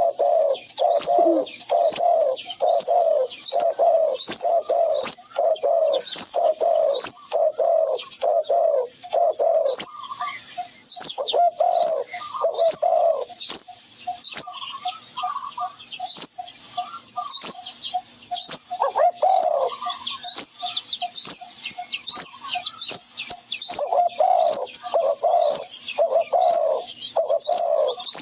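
Birds calling without pause: a low note repeated about twice a second under quick, sharp high chirps. Partway through, the low notes thin to small rapid pulses for several seconds before the fuller calls return.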